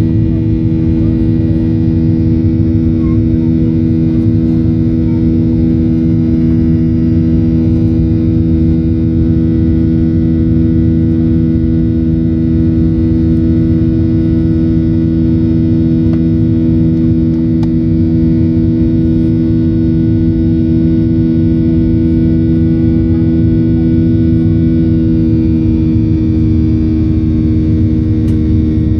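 CFM56-7B26 turbofan engine of a Boeing 737-800 at climb thrust, heard inside the cabin: a steady buzzsaw sound of many unchanging tones stacked over a low roar.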